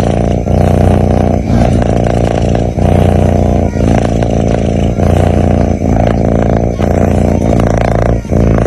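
Sleeping kitten's loud, close-up breathing rumble, a steady low drone broken by a short pause about once a second as each breath turns.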